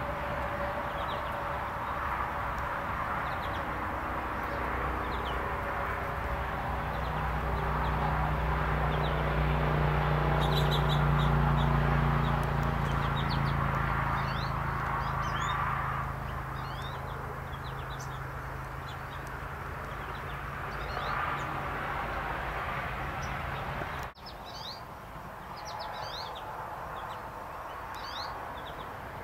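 Wild birds chirping in short, quick high calls, on and off throughout and busier near the end. Under them is a steady low engine hum that swells to its loudest about a third of the way in and dies away about two-thirds through.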